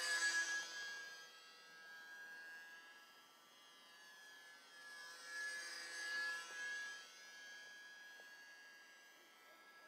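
Electric radio-controlled model airplane's motor and propeller whining as it flies past overhead. It is loudest at the start, fades, then swells again about five to seven seconds in as it makes another pass.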